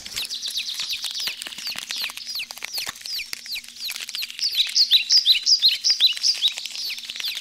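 Many small birds chirping: a dense run of quick, high, falling chirps, busiest and loudest from about four and a half to six seconds in.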